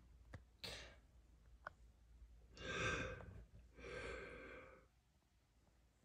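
A person's breath: a short breath under a second in, then two long breathy sighs, one about two and a half seconds in and one about a second later.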